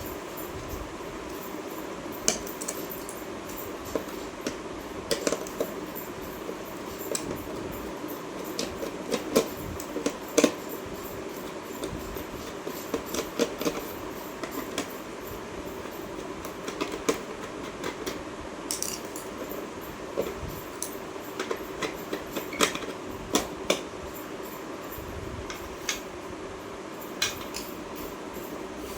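Irregular light clicks and clinks of small hard parts and tools being handled during a wall clock repair, over a steady low hum.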